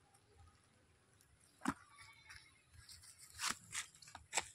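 Freshly caught fish flapping and slapping against a plastic bucket: four short, sharp knocks, one about a third of the way in and three in the last second and a half, the last the loudest.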